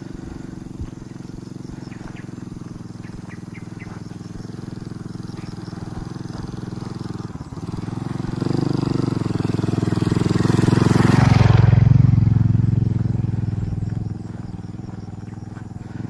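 A motorcycle engine running, growing louder from about halfway through to pass close by, then easing off a few seconds before the end.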